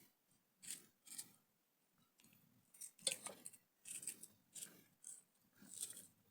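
Knife cutting vegetables into cubes, a run of about ten faint, crisp cuts at an uneven pace.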